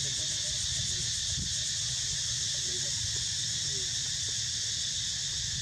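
Steady high-pitched drone of insects in the surrounding vegetation, with a low rumble underneath.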